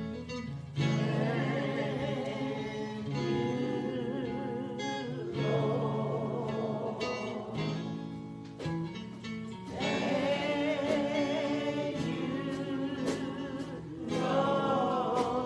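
Gospel singing by a choir, with voices holding wavering notes over instrumental accompaniment.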